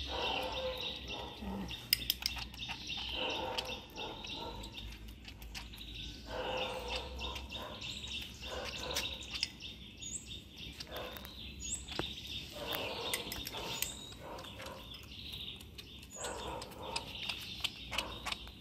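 A baby monkey eating noodles with a metal spoon from a ceramic bowl: scattered small clinks and scrapes of the spoon, with small birds chirping in the background, several short rising chirps in the second half.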